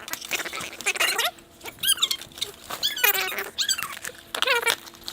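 Squeaky, chipmunk-like sped-up voices from time-lapse footage: several short, high-pitched calls that slide up and down in pitch, with gaps between them.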